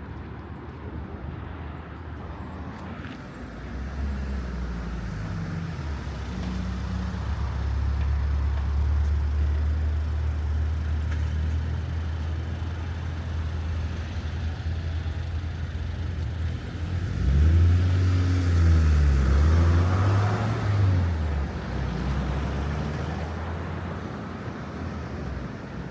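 Street traffic with a large vehicle's engine running close by: a low drone that grows louder about four seconds in. Around seventeen seconds in the engine revs up and down, the loudest part, and it fades near the end.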